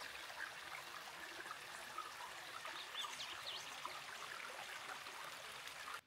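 Faint steady rush of running water, with a few faint high bird chirps about three seconds in.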